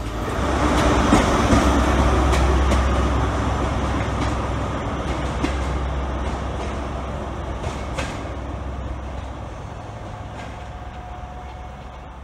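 InterCity 125 High Speed Train pulling away: the diesel power car runs and the wheels rumble, loudest about a second in, then the sound fades steadily as the train moves off.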